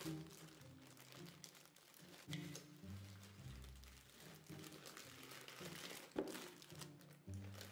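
Plastic candy multipack bag crinkling as small wrapped candy packs are poured out into a bowl, over soft background music.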